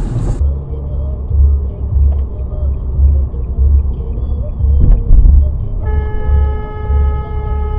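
Low, pulsing road and engine rumble inside a car. From about six seconds in, a car horn is held down in one long blast.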